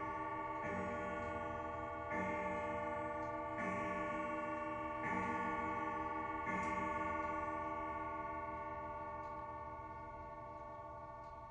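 Ridgeway grandfather clock's gong striking the hour: five even strikes of the same ringing tone, one about every second and a half. The last one dies away slowly over the following several seconds.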